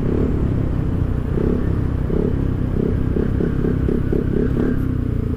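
Rusi Rapid 150 scooter's single-cylinder engine running under way through an aftermarket full-system exhaust with its silencer fitted. The note pulses evenly for a few seconds in the middle.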